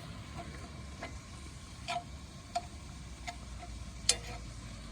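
Lean ground bison browning in a pan, sizzling quietly while it is stirred, with a few sharp taps of the utensil against the pan.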